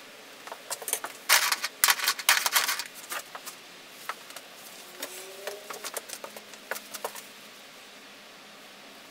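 A flurry of light clinks and rattles from paint brushes and painting supplies being handled, densest between about one and three seconds in, then scattered clicks until about seven seconds in.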